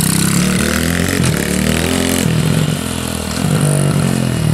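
Small pit bike engine revving as the bike is ridden, its pitch rising and falling several times with the throttle.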